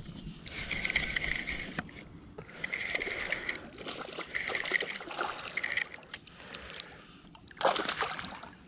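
A fishing reel is cranked in several short spurts of about a second each as a hooked fish is brought in. Near the end comes a louder splash of water as the fish thrashes at the kayak.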